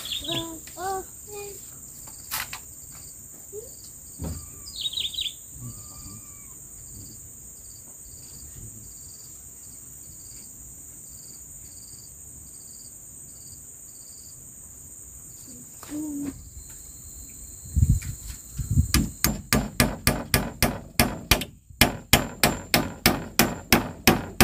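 Insects trilling steadily in the forest with a few short bird chirps. About three-quarters of the way through, a fast, even hammering begins, two to three ringing blows a second, as the hut's log wall is fixed in place.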